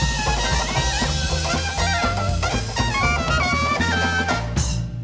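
Live Dixieland-style jazz band playing, with horns carrying a wavering melody over bass and drums. The tune ends on a loud final crash about four and a half seconds in, which rings away.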